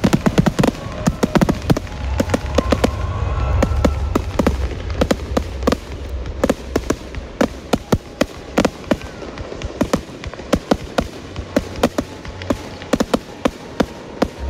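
Fireworks display: a dense run of sharp bangs and crackles, several a second, with a low steady rumble under the first half that fades out about midway.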